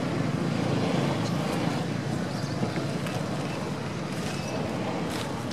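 Steady low rumbling background noise with a faint hum.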